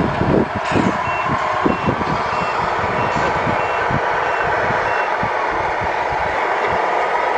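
Sound unit of a Tamiya 1/14 RC tractor truck sounding its reversing beeper as the truck backs up: about seven short beeps at one pitch, evenly spaced a little over half a second apart, starting about a second in and stopping about five seconds in. Under them runs the truck's steady engine sound.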